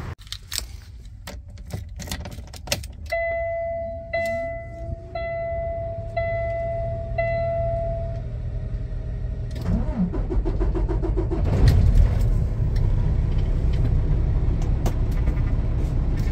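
Clicks and knocks of getting into a Peterbilt 579 cab, then the dash warning chime beeping about once a second for several seconds at key-on. About ten seconds in, the truck's diesel engine cranks and starts, then runs at a steady idle.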